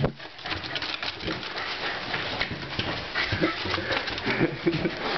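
Pembroke Welsh Corgi whining and giving short excited cries while it goes after a balloon, over a run of quick clicks and taps.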